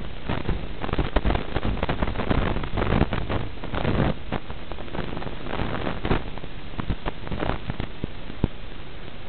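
Steady hiss with irregular crackling from the audio channel of an analog 5.8 GHz FPV video link, recorded in the goggles. The crackles come thickest a few seconds in, as the video signal breaks up.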